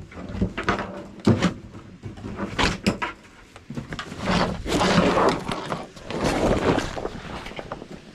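Backpack being picked up and shouldered: a few sharp knocks, then rustling of the fabric and straps in several swells.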